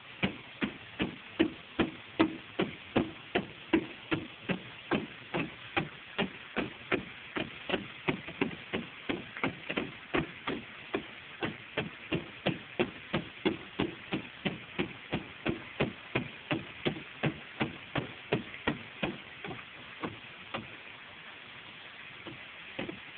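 Hammer tapping steadily, about two or three strokes a second, on the lead base of a copper plumbing vent boot on a clay tile roof. The strokes die away about twenty seconds in, with a couple of stray taps near the end.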